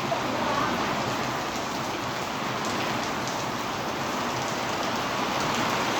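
Heavy rain pouring steadily, a dense even hiss of rain hitting surfaces.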